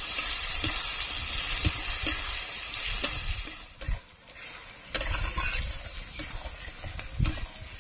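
Chopped garlic, onion and tomato sizzling in hot oil in a pan as they are stirred, with occasional knocks and scrapes of the stirring utensil against the pan. The sizzle drops about four seconds in and picks up again about a second later.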